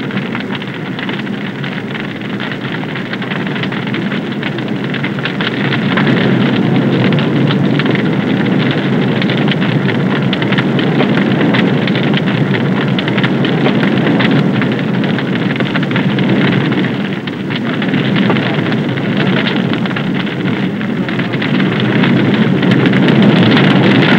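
Large room fire of burning polyurethane-foam furniture, out of control: a dense, steady rush with crackling throughout. It grows louder about six seconds in and again near the end.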